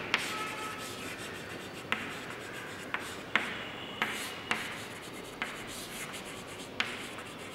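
Chalk writing on a chalkboard: scratchy strokes broken by several sharp taps as the chalk strikes the board.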